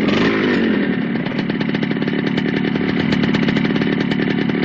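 A motorcycle engine slows down at the start, then runs at a steady idle with a rapid, even pulsing beat.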